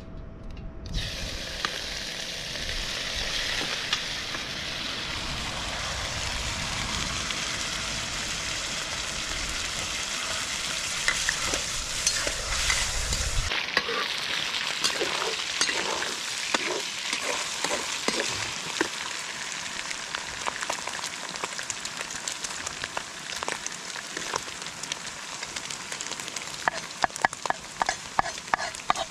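Meat sizzling as it hits a hot oiled wok, the frying hiss starting sharply about a second in and holding steady. A metal spatula stirs and scrapes the meat around the wok, its scrapes coming quicker near the end. A low rumble underneath stops abruptly about halfway.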